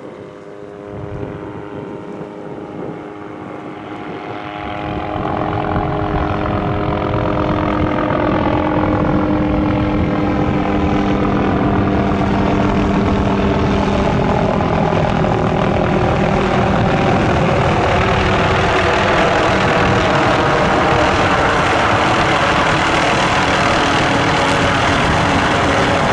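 MD530F helicopter's turboshaft engine and rotors, growing louder over the first five seconds as it comes close, then a steady, loud beat of rotor and turbine noise.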